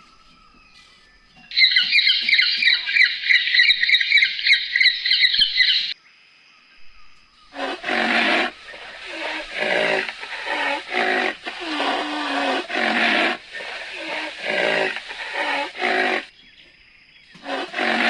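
Animal calls: a rapid high-pitched chattering for about four seconds, then after a short pause a long run of repeated short, loud calls, one after another.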